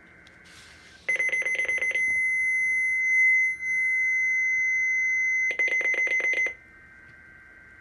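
Electronic alert tones from a weather radio: about a second of rapid pulsing beeps, a steady high-pitched tone for about three and a half seconds, then another second of rapid beeps.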